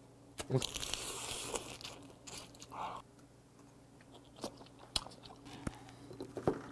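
Close-up eating sounds of a person eating steamed snow crab: meat sucked from the legs, shells cracking and crunching, and chewing, with scattered sharp clicks.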